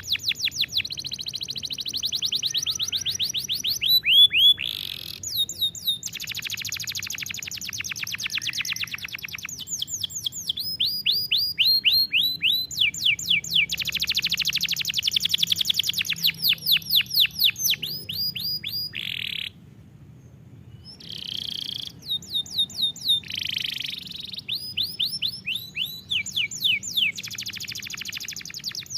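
Canary singing a long song of fast trills: each phrase is a rapid run of repeated high notes, switching to a new note type every second or two. There is a pause of about a second and a half about two-thirds of the way through.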